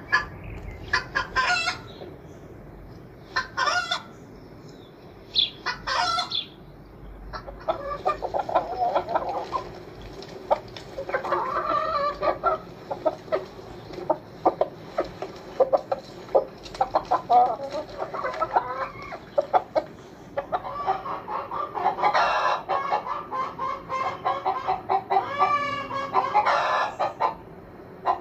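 Chickens clucking: a few separate squawks at first, then many birds clucking over one another from about seven seconds in, with a longer wavering call near the end.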